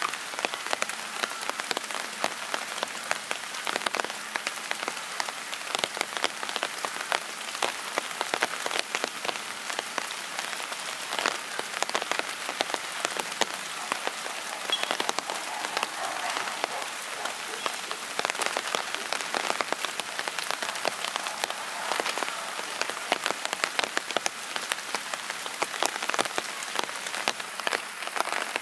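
Steady rain, with many drops striking a surface close by as separate sharp taps over an even hiss.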